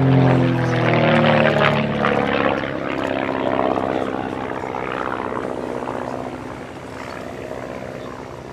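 Van's RV-8 aerobatic aircraft's piston engine and propeller at display power. The pitch drops over the first couple of seconds as the plane passes, then the drone gradually fades.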